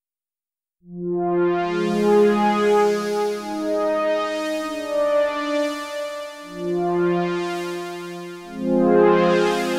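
Roland SH-4d synthesizer's Juno-106 model playing its factory preset 'Juno Pad 1': a synth pad of sustained chords that starts about a second in and changes chord every second or two. Each chord brightens as it swells in, then mellows.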